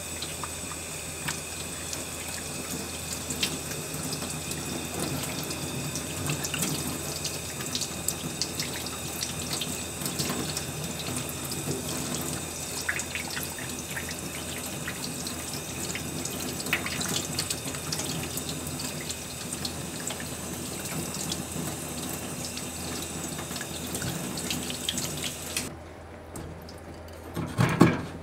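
Kitchen tap running in a thin stream onto a fish and into a stainless steel sink, a steady splash with small clicks from the hands working the fish. The water cuts off abruptly near the end, and a kitchen knife knocks sharply on the wooden cutting board.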